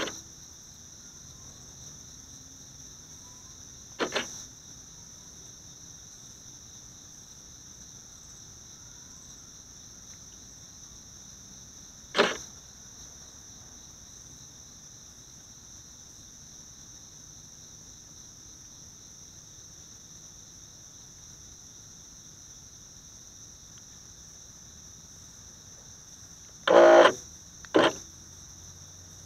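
Steady high-pitched insect chorus, with a few short sudden knocks rising above it: one at the very start, one about four seconds in, one around twelve seconds, and two close together near the end.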